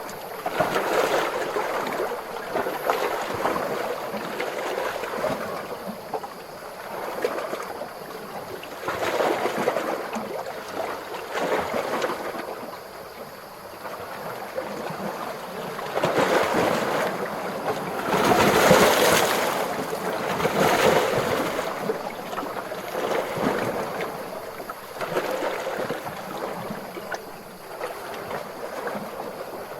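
Small ocean waves washing and lapping in, in repeated swells every few seconds, the largest a little past halfway through.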